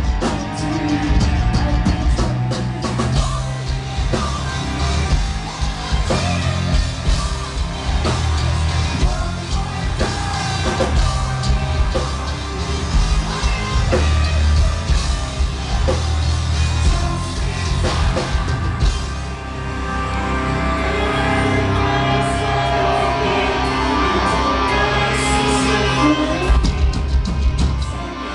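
Metal band playing live, with drums, bass, guitars and singing, heard from the audience. The drumming eases off about two-thirds of the way in, leaving steadier held notes, then picks up again near the end.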